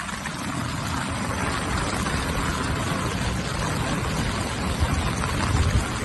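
Steady rushing noise of wind and water over a flooded road, with wind buffeting the microphone in low rumbles that grow stronger toward the end.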